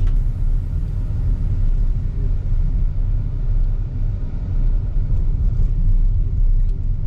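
Steady low rumble of a car driving along a road, heard from inside the cabin: road and engine noise.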